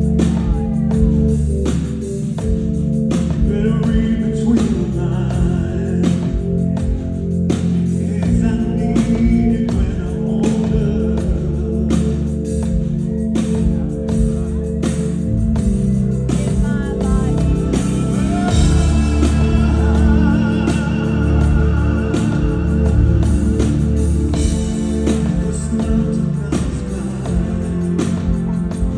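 Live rock band playing a slow song: sustained held chords and bass under drum hits about a second apart, with singing that grows fuller over the second half.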